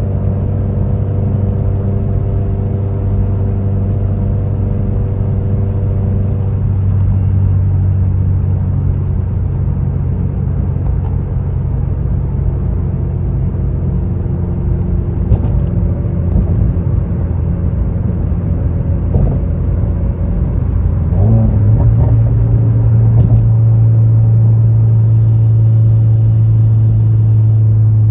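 Subaru WRX's turbocharged flat-four engine running steadily while cruising, with road rumble. About three-quarters of the way through, the engine note sweeps up briefly, then holds steady and a little louder.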